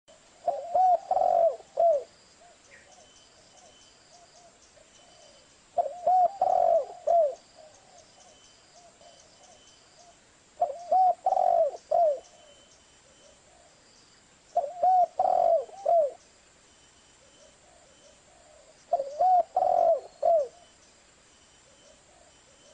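Spotted dove (Streptopelia chinensis) cooing: five calls, each a short phrase of three or four low coos lasting about a second and a half, repeated every four to five seconds.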